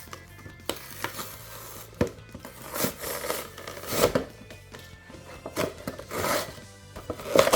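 Cardboard and plastic toy packaging being opened by hand: irregular crinkling, scraping and tearing, with a few sharp clicks. Background music underneath.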